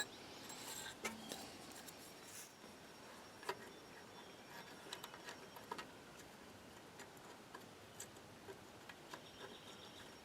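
Faint, irregular light clicks and taps of small metal parts and hand tools being handled while a winch solenoid pack is fitted up, the clearest about three and a half seconds in.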